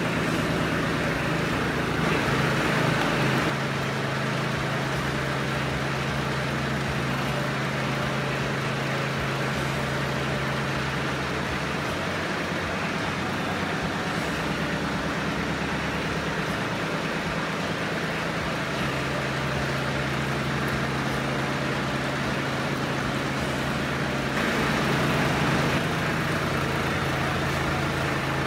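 Kubota compact tractor's diesel engine running steadily while its loader hydraulics drive the apple press. Twice it gets louder for a second or so: once about two seconds in and once near the end.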